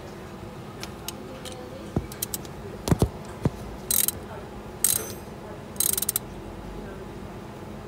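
Hand ratchet wrench clicking in three short bursts as it runs in the mounting bolts of a new A/C compressor, after a few sharp metal knocks.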